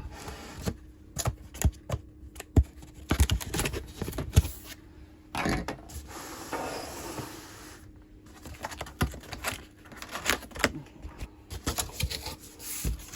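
Shipping box and packaging being opened and handled: a run of irregular knocks, clicks and scrapes, with a longer scraping rasp of about two seconds midway.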